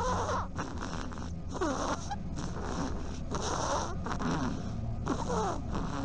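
Hazel dormouse calling: a steady run of short raspy squeaks, one or two a second, each sliding down in pitch.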